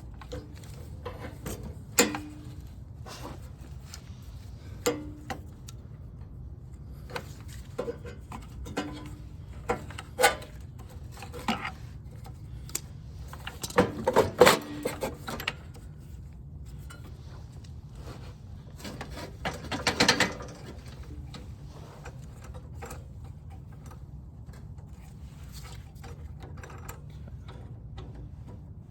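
Hand tools clicking and clinking against small metal parts as a cotter pin is worked out of a snowblower part, with scattered single taps and busier flurries of clicks about halfway through and again about two-thirds of the way through, over a steady low hum.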